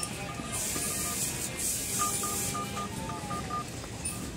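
Short electronic beeps from smartphones going through a touchscreen test, heard over background music: a few early on, then a quick run of about seven in the middle.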